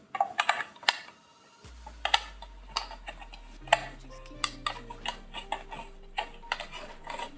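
Sharp clicks and taps from handling the microphone's stand base and other parts out of the box. Background music starts about two seconds in, a held bass note under a simple stepping tune.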